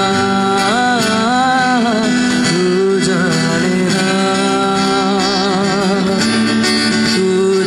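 Male vocalist singing a slow melody with an acoustic guitar accompanying, performed live; several held notes waver with vibrato.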